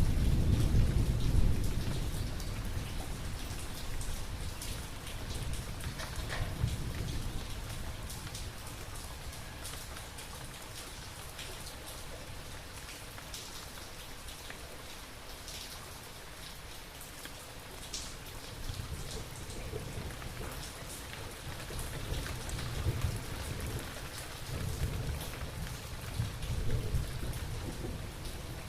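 Steady rain with scattered drop ticks, under low rolling thunder. One rumble fades away over the first couple of seconds, and another swells up in the last third.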